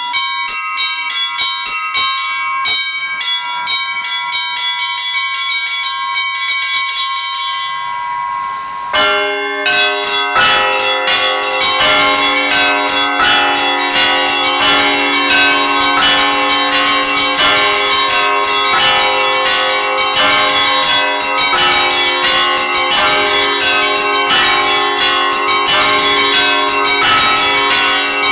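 Russian Orthodox church bells played by a single bell ringer. At first only the small, high bells chime in quick strikes; about nine seconds in, the larger, lower bells join and the ringing becomes a full, dense peal.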